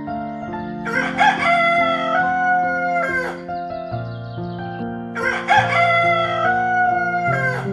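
Rooster crowing twice, each crow a long call of about two and a half seconds that falls off at the end. Background music with sustained chords plays underneath.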